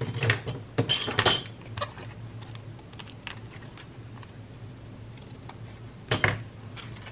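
Scissors snipping through a strip of paper, with paper rustling and small handling clicks: a cluster of snips in the first second and a half, a single one near two seconds, and another short burst just after six seconds.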